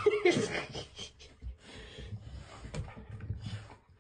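A dog making grunting, snorting noises as it tugs at a suction-cup tug toy stuck to a door. A few sharp knocks come through as the toy and door are yanked.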